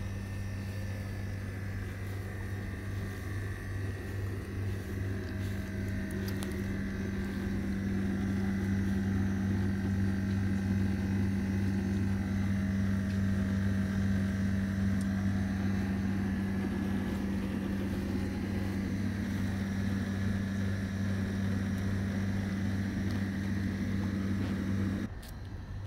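Steady low mechanical hum with a rushing undertone, from a running motor or machine, cutting off suddenly near the end.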